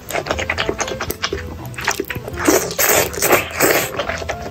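A person slurping up noodles and chewing them, with many wet mouth clicks and smacks close to the microphone.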